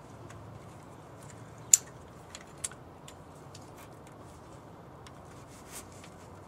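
Plastic clicks and light rubbing as hoses and the electrical connector are pushed back onto a new evaporative canister purge solenoid: one sharp click a little under two seconds in, then a few lighter ones.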